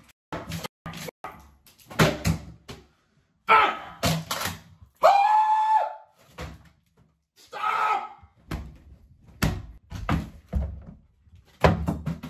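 A man screaming and yelling in a rage, among a run of sharp thumps and bangs as things are struck and slammed. One held scream comes about five seconds in.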